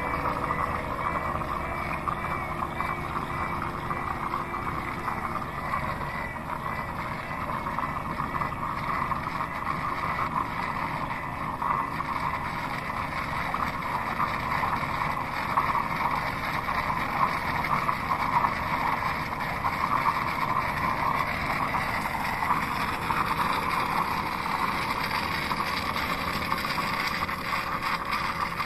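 Roomba Max 705 Combo AutoWash station running steadily, a continuous motor whir with a faint warbling tone on top during the first few seconds.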